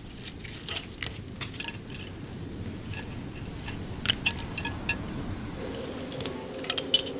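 Cooked mussel shells clicking and clinking irregularly as they are pried open by hand and dropped against earthenware clay pots. A faint steady hum comes in about two-thirds of the way through.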